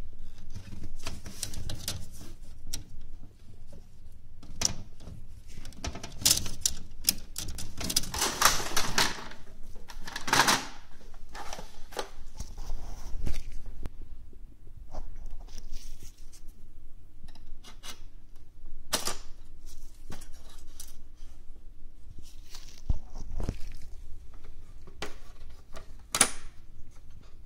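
Irregular plastic clicks, knocks and scraping as a gloved hand slides paper feed rollers off and onto their shafts in a laser printer's paper feed.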